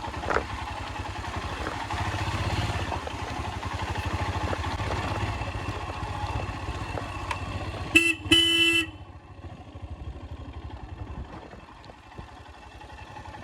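Motorcycle engine running steadily on a rough road. About eight seconds in, a horn sounds twice, a short toot and then a longer honk, and after that the engine runs more quietly.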